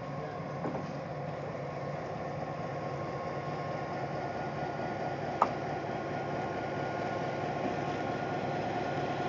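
Diesel locomotive engine running steadily as the locomotive creeps forward, a low hum with a few steady tones that grows slightly louder as it draws closer. A single sharp click about five and a half seconds in.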